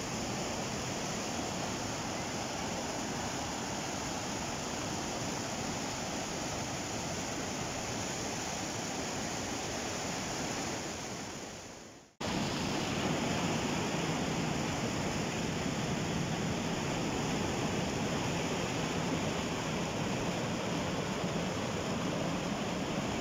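Rapids on a fast mountain river: white water rushing over rocks as a steady, even noise. Near the middle it fades out and cuts straight back in, a little louder and fuller in the low end.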